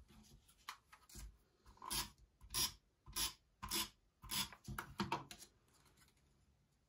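A run of about eight short rasping strokes, roughly one every half to one second: a tape runner being swiped along paper border strips to stick them onto a scrapbook page.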